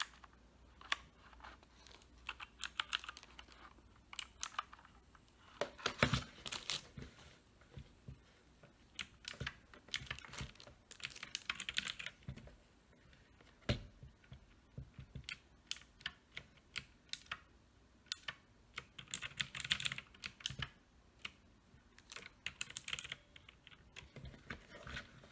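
Keys of an Uhuru UMK-100 60% mechanical keyboard with blue switches clicking as they are pressed, in scattered single presses and several quick runs of presses.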